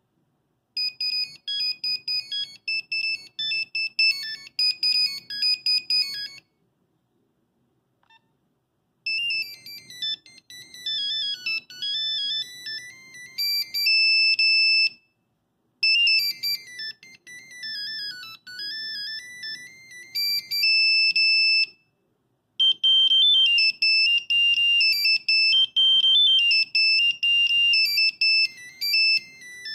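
Nokia 5110 monophonic ringtones: short melodies of high, single beeped notes, one tune at a time. A first tune plays for about six seconds, a second tune with falling and rising runs of notes plays twice, and a third tune starts near the end.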